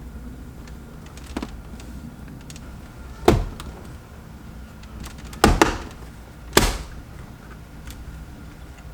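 Interior trim piece being pressed into the car's dash, its plastic retaining clips snapping home in a few sharp snaps: one about three seconds in, a quick double a couple of seconds later, and another about a second after that.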